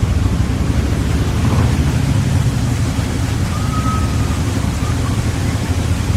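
Loud, steady low rumble under a rushing noise, like a vehicle engine with wind buffeting the microphone, with a brief faint tone about four seconds in.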